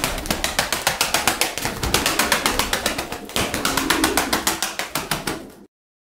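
Pigeon wings flapping fast, a rapid run of wing beats about eight or nine a second, which cuts off suddenly near the end.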